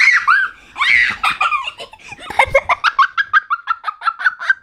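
Laughter from someone being tickled: breathless laughs at first, then from about two seconds in a fast run of high giggles, about five a second.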